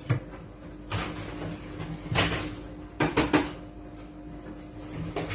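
Several sharp knocks and clicks of kitchen handling, three of them in quick succession about three seconds in, over a steady low hum.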